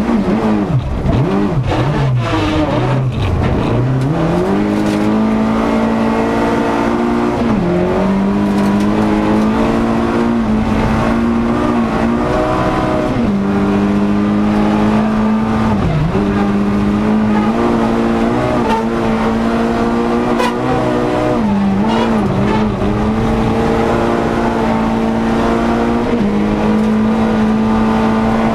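Volkswagen Golf 16S rally car's engine, heard from inside the cabin, driven hard. The revs rise and fall quickly several times in the first few seconds, then are held high and steady at full throttle. Brief dips in revs break in about every four seconds.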